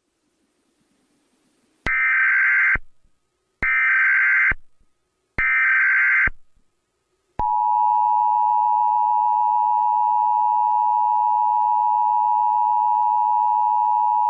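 Emergency Alert System test tones: three short bursts of the screeching digital SAME header, about a second apart, then the steady two-tone EAS attention signal (853 and 960 Hz together) starting about seven seconds in and holding, with a faint low buzz under it.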